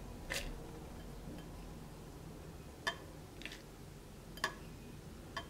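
A few faint, scattered light clicks as handfuls of grated coconut are dropped into a mixer-grinder jar, the hand and bowl lightly touching the jar.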